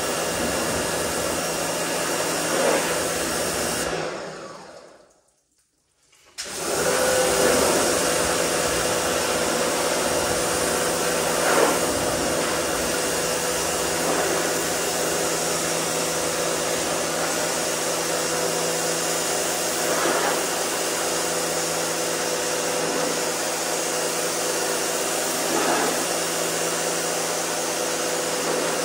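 Pressure washer running as its wand sprays water against a pickup truck: a steady motor hum under a hiss of spray. About four seconds in the sound fades out, then starts again abruptly about two seconds later.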